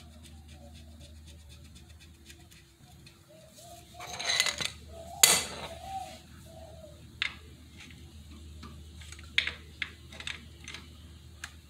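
Metal-on-metal clinking of a box spanner on a motorcycle's oil drain bolt, with the metal drain pan close by. There is a louder clatter about four seconds in and another a second later, then a handful of single sharp clinks near the end as the drain bolt is tightened.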